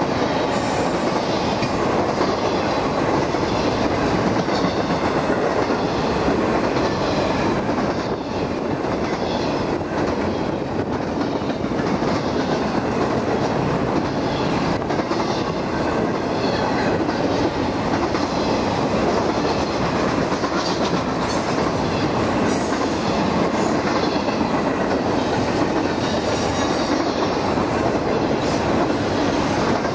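Double-stack container train rolling past, a steady rumble of steel wheels on the rails with a clickety-clack of the cars.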